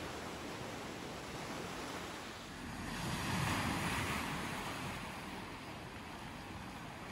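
Sea surf washing over rocks and onto a pebble beach, a steady wash with one wave breaking louder about three seconds in.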